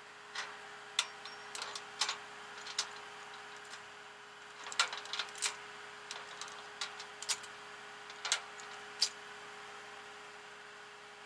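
Irregular metallic clicks and clinks, in small clusters, from tie-down hardware on a flatbed tow truck being handled while the car is secured, over a steady hum.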